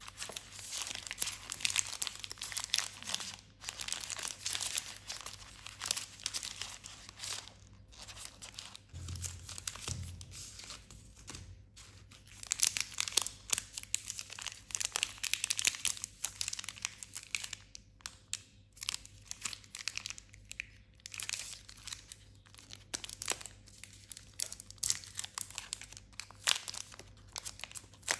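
Crinkling of Aero Peppermint chocolate bar wrappers handled between the fingers, in dense crackly runs with short pauses, and the wrapper being torn open near the end.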